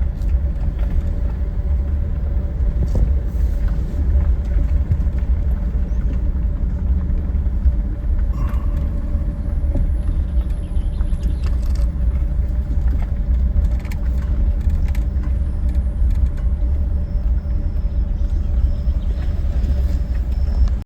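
A car driving, with a steady low rumble from the road and engine and a few light clicks and rattles.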